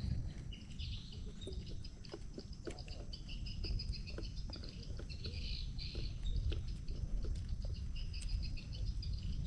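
Forest chorus of high, rapid chirping calls that repeat throughout, over a steady low rumble with scattered small clicks.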